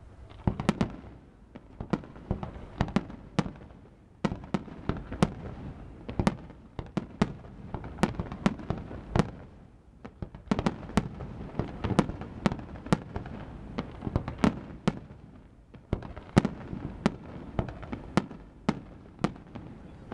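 Fireworks display: a rapid, irregular string of sharp bangs and cracks, several a second in clusters, each trailing a short echo, with brief lulls a few times.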